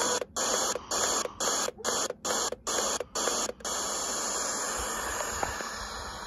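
FM static hiss from a Borne portable radio's speaker, cut by a brief mute at each step as the tuning button scans through empty frequencies, about two steps a second. After about three and a half seconds the scan stops on an empty frequency and the hiss runs steadily.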